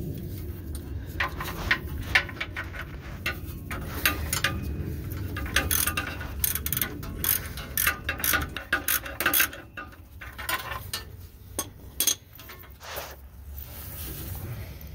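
Hand ratchet wrench clicking in quick runs as transmission-to-engine bolts are run in and snugged up, the clicks thinning out after about ten seconds.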